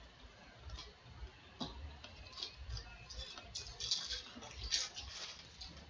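Baseball trading cards being flicked through and shuffled by hand: a string of soft, irregular clicks and rustles, busiest in the second half.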